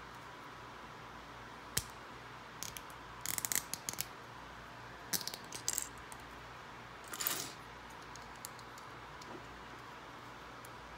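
Loose plastic Lego bricks clicking and clattering as a hand picks through a pile of pieces: a few short bursts of clicks with pauses between, the longest clatter about seven seconds in.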